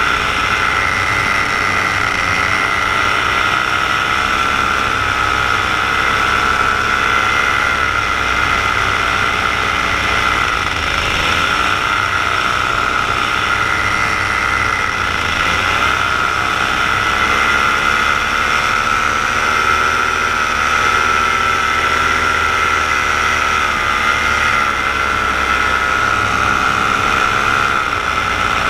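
Paramotor engine and propeller running steadily in flight, a continuous drone whose pitch dips and recovers slightly a few times, around 11 and 15 seconds in.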